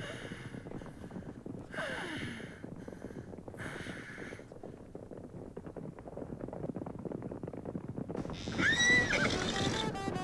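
Horse sound effect: hooves clip-clopping in a quick run, with a few short whinnies in the first half and a louder whinny near the end that rises and then falls in pitch.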